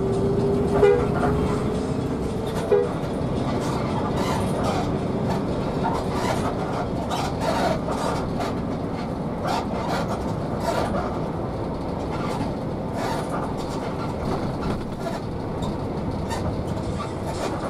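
A horn holds one long note for about the first three seconds, with short louder blasts near the start and at its end. Under it and after it, the coach's engine and road noise run steadily in the cabin, with scattered short rattles.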